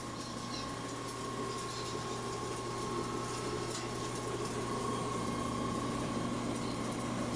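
A machine running steadily, with a constant low hum and a steady high whine.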